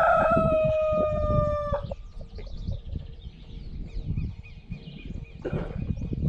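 A rooster crowing: one long crow, already under way at the start, that drops in pitch and cuts off about two seconds in.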